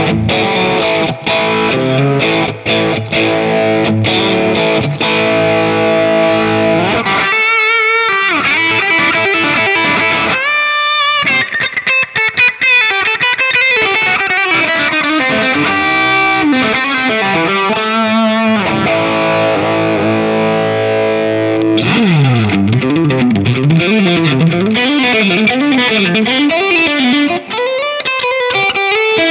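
MUSI Capricorn Fusion electric guitar played with distortion in fast lead runs, with repeated swooping pitch bends in the last several seconds.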